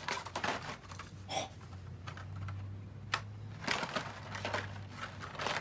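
Plastic blister packs and cardboard-backed toy car packages clicking and crinkling irregularly as hands rummage through baskets of them, over a low steady hum.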